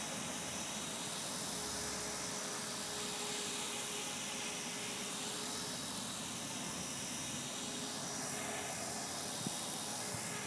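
E-flite Blade 450 electric RC helicopter hovering: a steady whine from its electric motor and spinning rotors, the tone sweeping gently as it drifts about.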